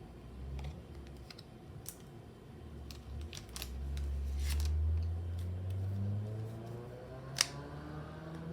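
Trading cards and their packaging being handled: scattered sharp clicks and crinkles, the sharpest near the end. Under them a low hum swells about halfway through and slowly rises in pitch.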